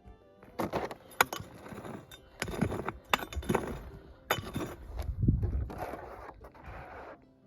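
Stony ground being scraped and shifted in a run of irregular strokes, with stones clinking and grating against each other.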